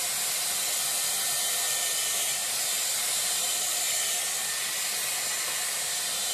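Dyson Airwrap with its round brush attachment running on high speed, a steady rush of air blowing through the brush and hair.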